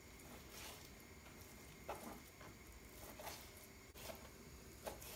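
Faint, irregular soft taps and squelches of a kitchen knife cutting raw meat into small pieces against a plastic cutting board.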